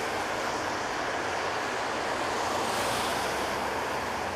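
Street traffic passing on a wet, icy road: a steady hiss and swish of tyres through meltwater, briefly brighter about three seconds in as a car goes by.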